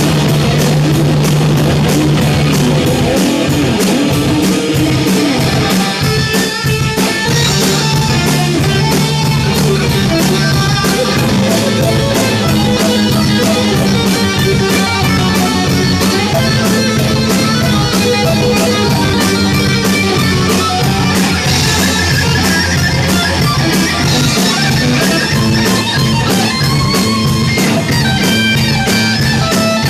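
Hard rock music led by electric guitar, over a steady beat of bass and drums.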